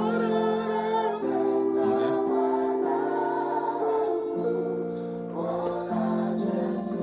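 Keyboard playing slow, sustained chords that change every second or two, with choir-like singing voices over them. This is the song's closing progression, which ends on the six chord rather than the one: a deceptive cadence.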